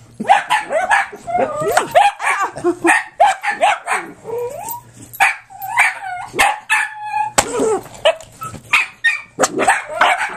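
Miniature dachshund barking and yipping in a rapid string of short barks, several a second: agitated barking at something she dislikes.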